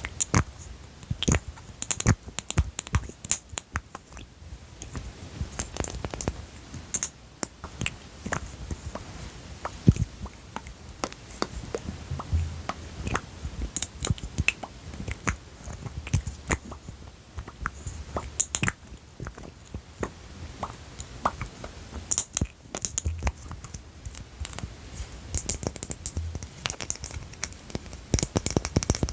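Fingernails tapping and clicking on small objects close to the microphone, in quick irregular runs of crisp taps with a few louder knocks.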